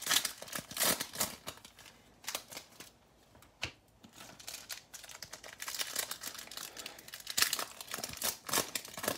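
Foil trading-card pack wrappers crinkling and tearing as they are ripped open by hand, in irregular bursts of rustling, with a quieter stretch about a third of the way in before the crinkling picks up again.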